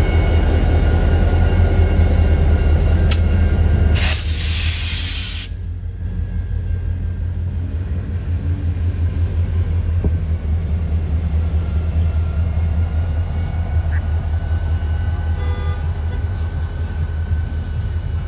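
Norfolk Southern diesel-electric locomotives passing close by, their engines running with a deep steady rumble. A loud burst of hiss comes about four seconds in and lasts a second and a half, after which the rumble goes on a little quieter.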